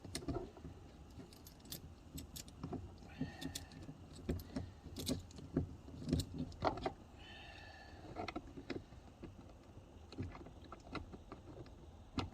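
Screwdriver with an 8 mm socket turning a screw out of a car door panel: irregular metallic clicks and clinks, with two short squeaky tones about three and seven seconds in.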